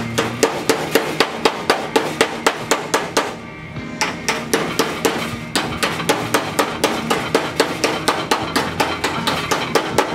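Hand hammer striking a car's sheet-metal fender on a metal workbench in quick, even blows, about four to five a second, with a short break about three and a half seconds in.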